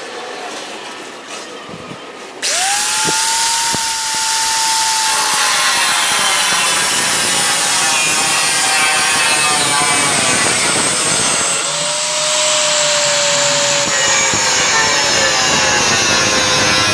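Power grinder working on a damaged motorcycle fuel tank: it starts abruptly about two seconds in and runs steadily as a loud abrasive grind over a whine that slowly sags, with a second pass partway through.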